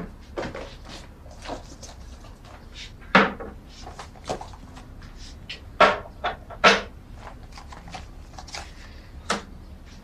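Small objects, a shaving-foam can and a razor among them, being set down and moved about on a tabletop: a run of short knocks and clacks, the loudest about three seconds in and twice between six and seven seconds in.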